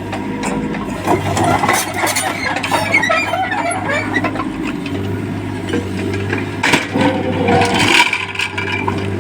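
JCB 3DX backhoe loader's diesel engine running, with irregular metallic rattles and squeals from the machine working.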